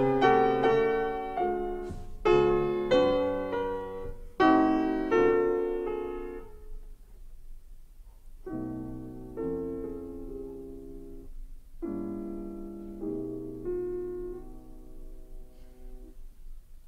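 Slow solo piano music: chords struck and left to fade, louder in the first few seconds and softer from about eight seconds in.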